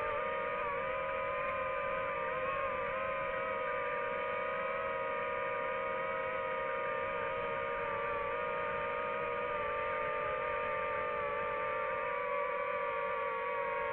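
Quadcopter drone's electric motors and propellers in flight, making a steady multi-tone whine.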